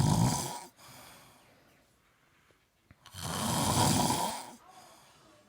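An ape snoring: one loud snore fading in the first second, then another about three seconds in, each lasting over a second.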